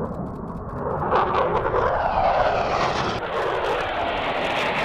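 F-16 fighter jet making a low pass: its jet engine noise swells about a second in and stays loud.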